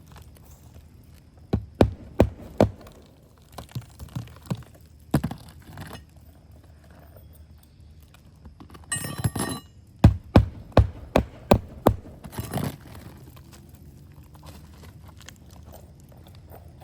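Hammer striking roofing nails to fasten a replacement asphalt shingle: a run of about four sharp blows, a few scattered ones, a short scraping rustle, then a quick run of about six blows.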